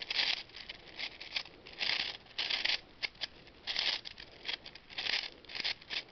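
V-Cube 6 (6x6 puzzle cube) being scrambled by hand: its plastic layers are turned quickly in a run of irregular scraping, clicking turns, about one or two a second.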